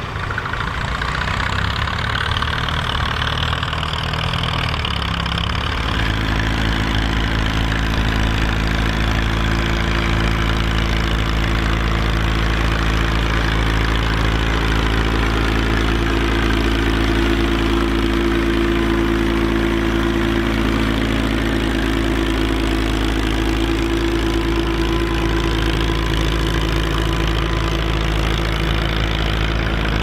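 Fiat 615DT tractor's diesel engine running steadily under load while pulling a three-furrow plough. The engine note shifts about six seconds in, then holds steady.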